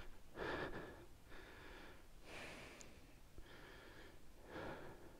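A person breathing heavily, with a breath about every one to two seconds, while walking a steep ridge trail.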